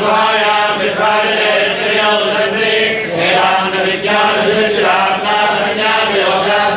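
A group of men chanting together in unison, a steady, many-voiced recitation with brief pauses between phrases.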